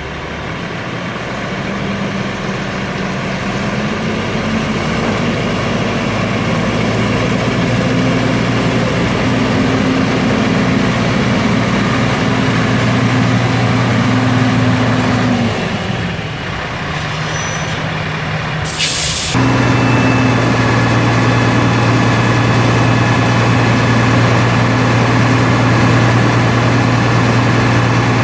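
Caterpillar 3306 inline-six turbo diesel of a crane truck running steadily, its note rising a little over the first few seconds. About two-thirds of the way in there is a short sharp hiss of air, typical of truck air brakes. After it the engine runs on steady and a little louder.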